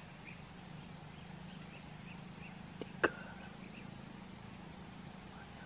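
Forest insects trilling in high, repeating bursts just under a second long, over a low steady hum, with one sharp click about three seconds in.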